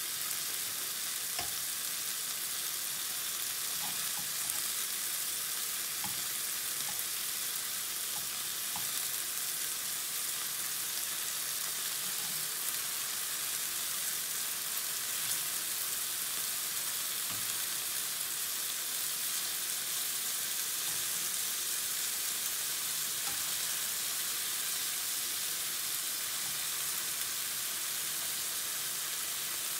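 Chicken breast pieces sizzling steadily in hot vegetable oil in a nonstick frying pan, with a few faint clicks as metal tongs turn the pieces over.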